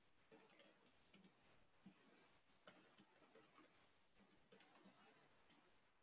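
Near silence: room tone with a few faint, scattered clicks.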